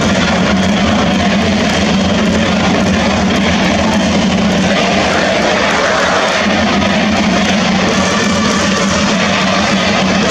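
Loud, steady crowd noise from baseball fans in a domed stadium, cheering on the home batter with a game-winning hit one swing away.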